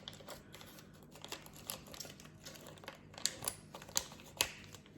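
Scattered light clicks and soft crinkling from plastic-bagged pork ribs being handled, with a few sharper ticks near the end.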